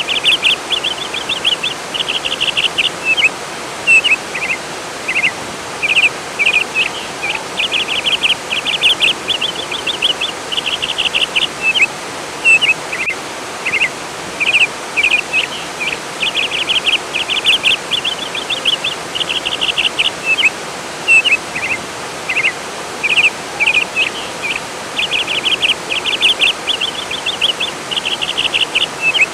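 Birds singing in quick, rapidly repeated trills, one run after another, over the steady rush of flowing water.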